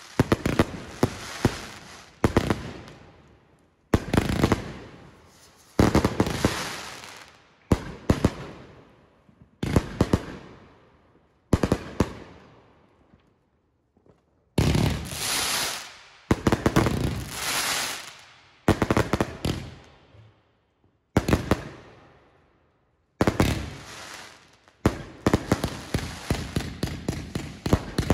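Aerial fireworks bursting overhead: a string of sharp bangs, each fading away over a second or two, mixed with crackling, with a couple of short pauses. Near the end the bangs come in a fast run.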